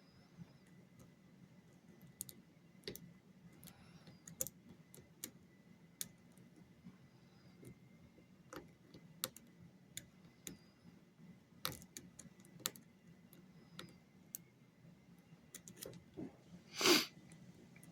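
Lock pick and tension wrench working inside a pin-tumbler lock: small irregular metallic clicks and ticks as the pins are set. Near the end comes one louder, brief rustling scrape.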